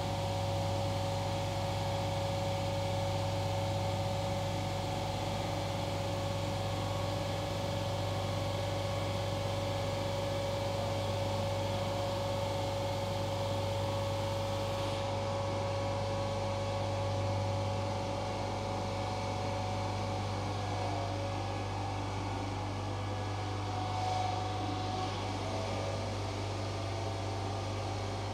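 CNC bridge saw running and cutting a stone slab with its diamond blade: a steady machine hum under a steady whine, with a hiss above. The hiss drops away about halfway through, and the whine fades out a few seconds later.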